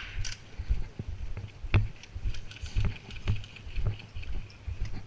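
Footsteps walking, a dull thud about every half second, with faint clicks and rattles of carried gear.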